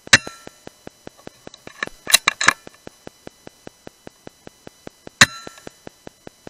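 A BSA R10 Mk2 .177 PCP air rifle is fired twice, about five seconds apart. Each shot is a sharp crack with a brief metallic ring. Around two seconds in comes a quick run of clicks, the bolt being cycled to load the next pellet. Under it all is a faint regular ticking, about five ticks a second.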